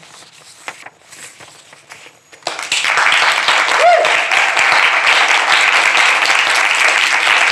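Audience applauding, starting suddenly about two and a half seconds in after a quiet pause and carrying on steadily.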